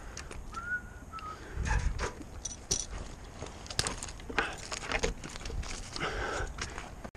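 A tree climber moving on the trunk: irregular knocks, scuffs and clicks of gloved hands, boots and climbing gear against bark. A short whistled note comes about a second in.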